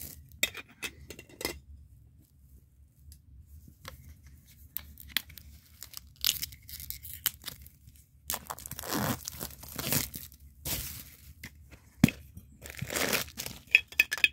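A few light clicks of handling a metal Funko Soda can, then from about halfway in loud crinkling and tearing of the plastic bag as the vinyl figure is pulled out, with a sharp click near the end.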